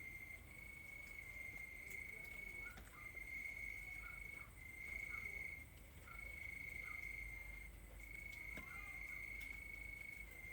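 Cricket trilling on one steady high pitch in long stretches broken by brief pauses. Faint short chirps sound between them, and a short rising-and-falling call comes about nine seconds in.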